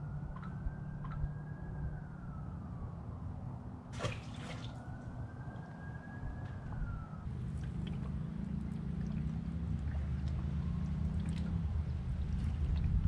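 Fishing reel spool whining through two casts, each whine rising and then falling in pitch over about two seconds, with a sharp click between them. A low steady rumble runs underneath and grows louder near the end.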